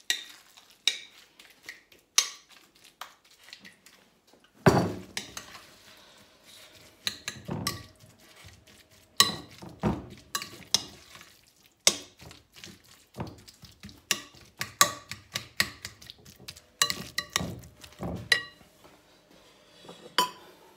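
Spoon stirring chopped avocado chutney in a glass mixing bowl: irregular clinks and scrapes of the utensil against the glass, with soft knocks, heavier from about four seconds in.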